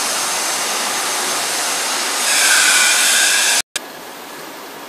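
Plasma cutting torch on a CNC gantry cutting table, giving a loud steady hiss of gas and arc. About two seconds in it grows louder with a higher whine. Near the end it breaks off abruptly and resumes as a quieter steady hiss.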